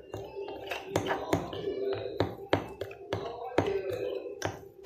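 Metal spoon stirring plaster of Paris paste in a small glass bowl, clinking and tapping against the glass in an irregular run of two or three taps a second.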